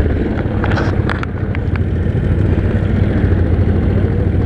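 Yamaha Grizzly 700 ATV's single-cylinder engine running at a steady throttle, with a few short knocks about a second in.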